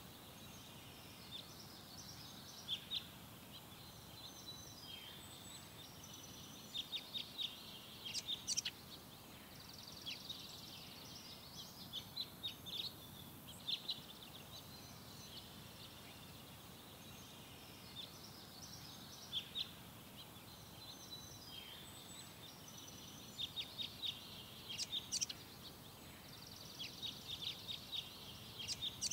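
Small songbirds chirping and twittering: groups of short, high, quick calls and fast trilled runs come and go, over a faint steady hiss.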